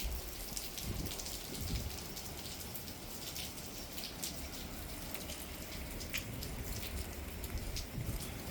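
Rain falling steadily, with scattered individual drops ticking sharply over a continuous hiss. A low rumble comes and goes at the start and near the end.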